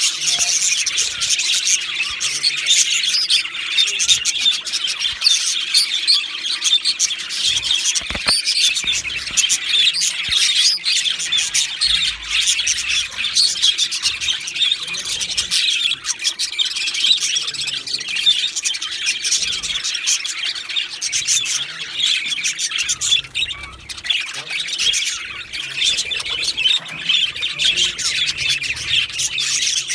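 Male budgerigars chirping and chattering without pause, a dense stream of quick high calls.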